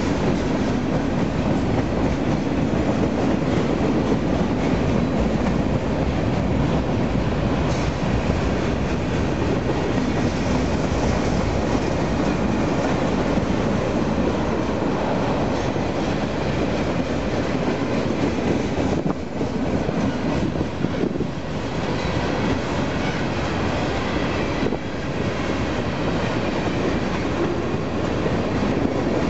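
Freight train of tank cars and covered hoppers rolling past, a steady rumble and rattle of steel wheels on the rails, with a couple of brief dips in level about two-thirds through.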